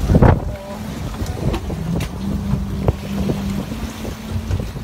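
Wind buffeting the microphone on the deck of a fishing boat, with a loud gust right at the start, then steadier wind and sea noise over a low steady hum from the boat's engine, and a few short knocks.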